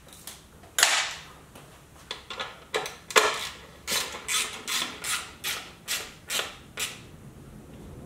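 Hand ratchet with a 3/8-inch Allen socket clicking as it tightens the air cleaner cover bolt, a run of short ratcheting strokes about three a second that stops about seven seconds in.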